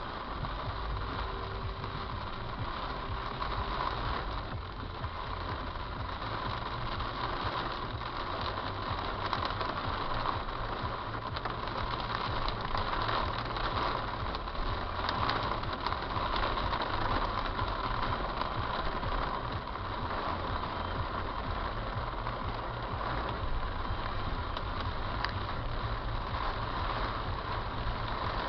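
Heavy rain falling steadily: a dense, even hiss of drops with many small ticks of individual drops striking.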